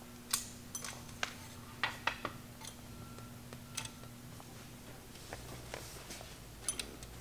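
Irregular metallic clinks and light knocks as the steel bar of a cam bearing installation tool, with a cam bearing and centering cone on it, is fed and slid through the cam bore of a cast-iron engine block. Some clinks ring briefly.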